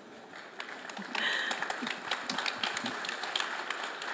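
Audience applauding: many hands clapping, the applause swelling about a second in and then going on steadily.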